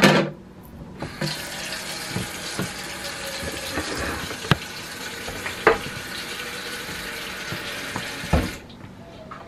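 Kitchen sink tap running steadily, turned on about a second in and off near the end, with a few sharp knocks and clinks against the sink. A loud knock sounds right at the start.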